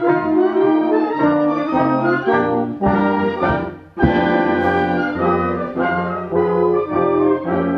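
Brass ensemble music, a series of held chords that change step by step. It fades away a little before halfway, and a new passage starts abruptly.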